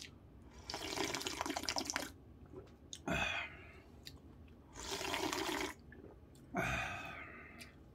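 A person slurping soup from a bowl held to the lips, in three long draws with a short sound about three seconds in.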